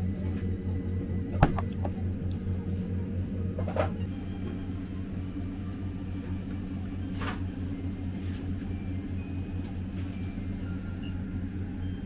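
A steady low mechanical hum in a small room, with a sharp knock of a glass set down on a wooden counter about a second and a half in, and a couple of fainter clinks later.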